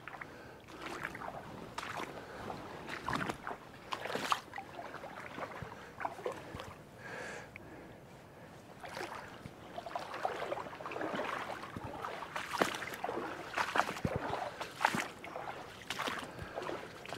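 Footsteps wading and sloshing through shallow floodwater and wet leaf litter, an uneven run of splashy steps with a quieter pause about halfway through.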